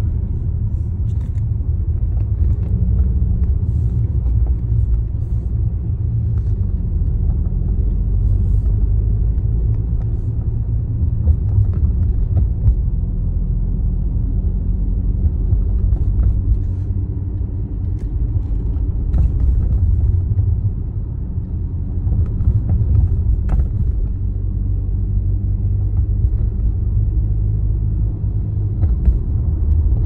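Steady low road rumble of a moving Mercedes-Benz W205 C-Class heard from inside the car, with occasional short, irregular knocks. The knocks are the noise the owner is trying to place, a clunk from the lowered coil-over suspension or a rattle in the dashboard.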